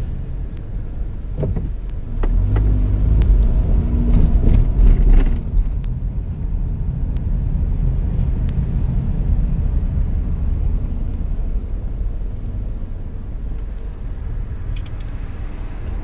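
A car driving: a steady low rumble of road and wind noise, swelling with a deeper engine hum from about two seconds in and easing back after about five and a half seconds.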